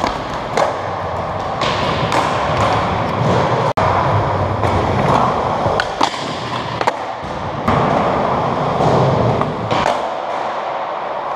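Skateboard wheels rolling over smooth concrete, with a run of sharp clacks and thuds from the board popping, hitting a ledge and a rail, and landing.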